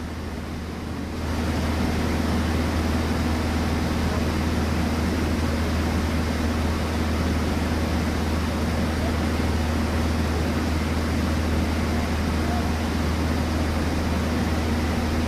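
Cessna 152's four-cylinder Lycoming O-235 engine and propeller droning steadily in flight, heard inside the small cockpit together with the rush of air over the cabin. The level steps up slightly about a second in, then stays even.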